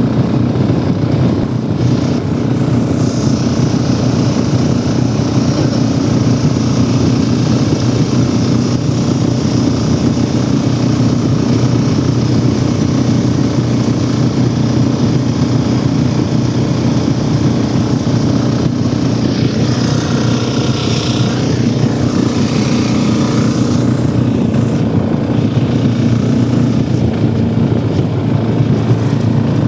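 Walk-behind tractor (motoblock) engine running steadily under way, a constant low drone, with a brief rush of hissing noise about two-thirds of the way through.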